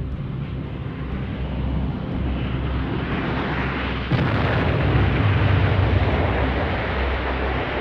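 A rushing noise builds up over low steady music, then a sudden loud blast about four seconds in is followed by a loud rumble, like a closing sound effect.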